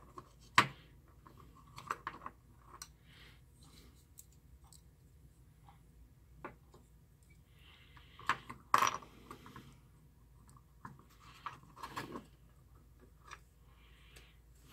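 Small clear acrylic panels and a circuit board with brass standoffs being handled and fitted together: scattered light plastic clicks and knocks, with the sharpest clacks about half a second in, around eight to nine seconds, and near twelve seconds.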